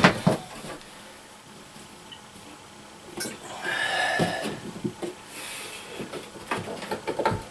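A lightweight shower base being handled and worked free of its board platform: two sharp knocks at the start, a scraping rub a few seconds in, and scattered clicks and taps near the end.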